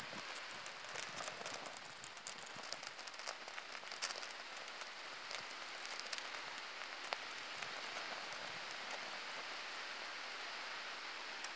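Red Fire firelighters burning in small open flames: a steady soft hiss with scattered small crackles and ticks, a slightly sharper pop about four seconds in.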